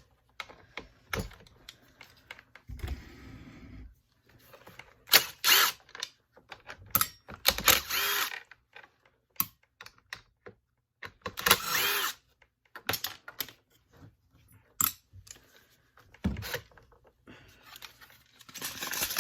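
Clicks and knocks of screws and plastic parts being handled as the recoil starter cover comes off a Stihl BG50 handheld blower, with several short bursts of a power driver.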